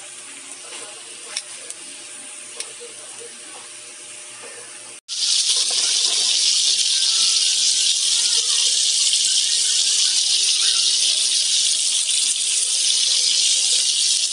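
Stuffed squid sizzling on a hot grill pan. The first few seconds are quieter, with a few light clicks of tongs. About five seconds in a loud, steady sizzle starts suddenly.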